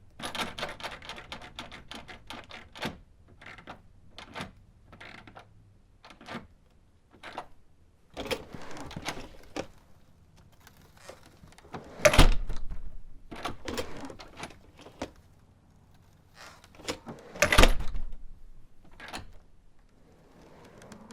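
Classroom door being opened and closed: its handle and latch click and rattle repeatedly. There are two loud thuds as the door shuts, one about midway and one a few seconds later.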